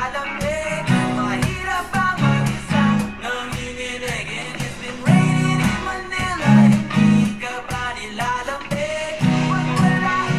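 Acoustic guitar strummed through the G, A, B minor chord progression, with a sung melody over it.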